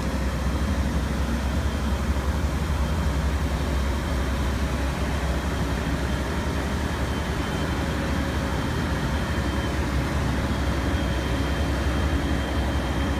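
Diesel engine of a track construction machine running steadily, a deep, even low hum.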